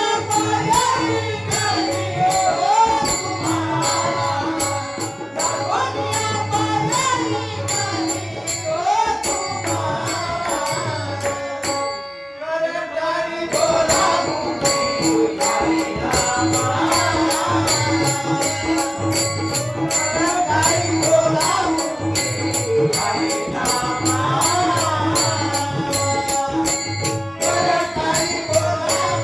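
Marathi abhang devotional song: a male singer's voice wavering through the melody over steady held tones, with tabla and a regular jingling beat. The sound drops briefly about twelve seconds in, then the singing resumes.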